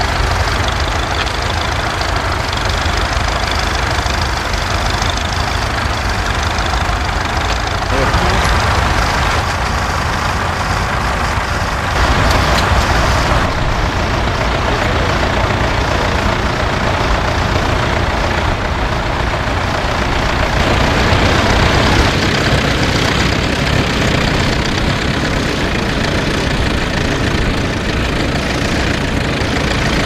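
Engines of small vintage grey Ferguson tractors running steadily as they pull mounted ploughs through the stubble, the sound shifting a few times between clips.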